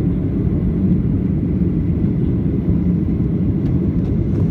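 Steady low roar of a jet airliner in flight, heard from inside the passenger cabin.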